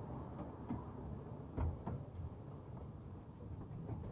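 Narrow-gauge railway carriage rumbling along the track, heard on board, with two sharp knocks about a second and a half in.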